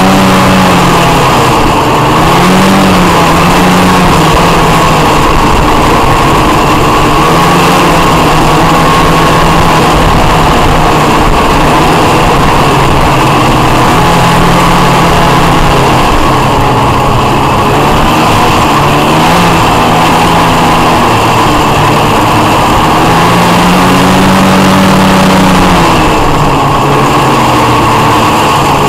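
Polaris Indy 440 snowmobile's two-stroke twin engine running close and loud as the sled travels, its pitch rising and falling repeatedly as the throttle is worked.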